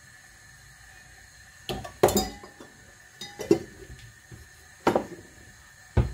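Metal spoon and kitchen dishes clinking: several sharp clinks and knocks with a short ring, the loudest about two seconds and three and a half seconds in.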